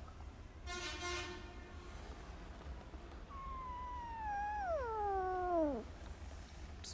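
Kitten meowing twice: a short, level meow about a second in, then a long meow from about three seconds in that falls steadily in pitch and grows louder toward its end.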